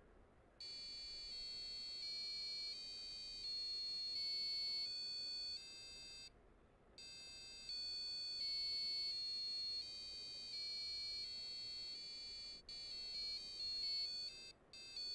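Passive piezo buzzer driven by an Arduino Uno playing the Sa Re Ga Ma scale as a run of shrill electronic beeping notes, each held for under a second and stepping in pitch. It breaks off briefly about six seconds in, plays another run, and ends with quicker, shorter notes.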